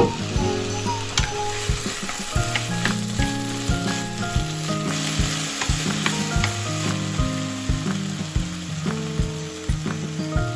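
Food sizzling in a hot frying pan with a steady hiss, over background music with a regular beat.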